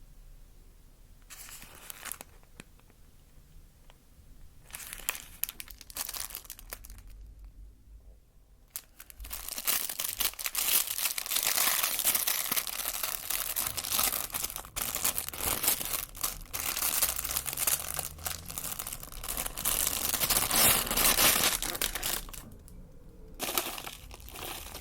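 Food wrapper being crinkled and torn open. There are a few short rustles, then about twelve seconds of continuous loud crinkling from roughly the middle, stopping briefly near the end before starting again.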